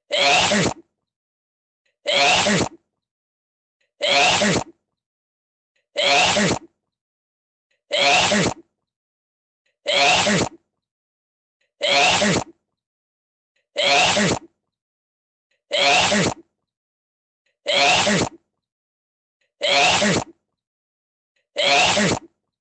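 A person's sneeze, the same recording looped about every two seconds, a dozen times in a row with dead silence between each.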